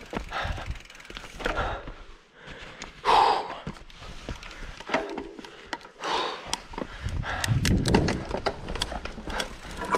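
Mountain bike being handled and rolled slowly over dirt and roots: scattered ticks, rattles and knocks from the bike. The rider breathes audibly, loudest about three seconds in.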